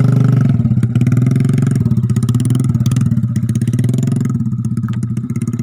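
Motorcycle engine running steadily at low revs, growing a little quieter near the end.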